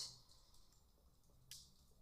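Near silence: room tone with a faint low hum, and one faint click about one and a half seconds in.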